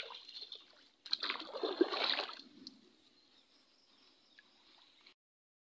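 Shallow muddy water splashing and sloshing around a person's legs as they wade, in two bursts in the first two and a half seconds, then a faint trickle until the sound cuts off shortly before the end.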